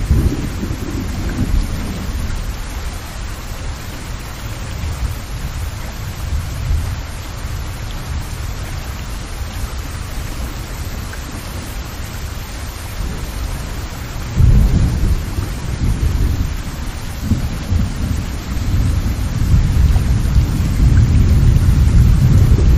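Steady rain with low rolls of thunder: one at the start, a sudden one about two-thirds of the way in, and more rumbling building near the end.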